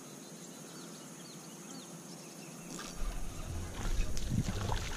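Quiet lakeside ambience with a few faint, short high chirps; about three seconds in a low rumble comes in along with several soft clicks and knocks.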